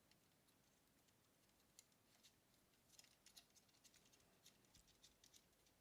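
Near silence with faint, scattered small clicks and taps, growing more frequent from about three seconds in: small parts of the wireless shoulder microphone being handled and fitted during reassembly.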